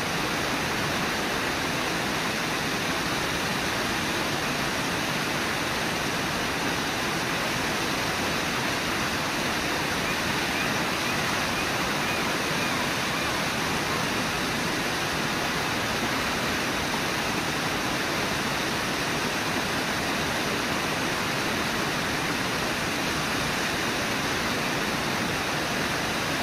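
Steady rushing of the Brooks River pouring over and below Brooks Falls, an even roar of water with no breaks.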